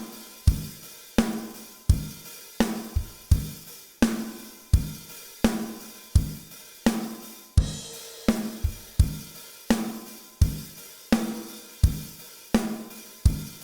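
Mixed acoustic drum kit loop: kick and snare alternating in a steady beat under hi-hat and cymbals, played back through an Avalon 747 compressor plugin while its tube signal path is switched in and out.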